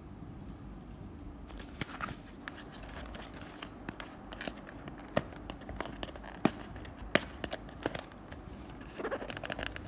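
Packaging being handled and opened: crinkling and rustling of plastic and cardboard with irregular sharp snaps and clicks, starting about a second and a half in.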